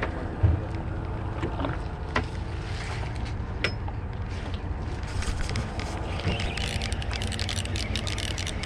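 Wind and water noise aboard a small fishing boat: a steady low rumble with a few light knocks, and a hiss that builds about five seconds in.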